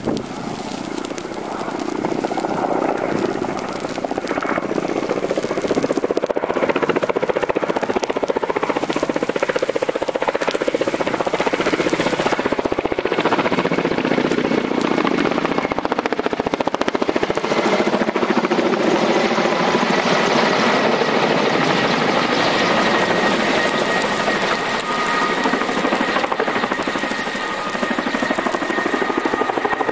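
Firefighting helicopter flying with a water bucket slung beneath it: a steady rapid rotor chop, with a high steady turbine whine coming in about two-thirds of the way through.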